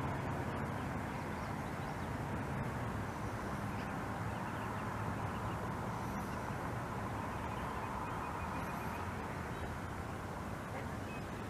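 Steady low background rumble with a faint hum, unchanging throughout.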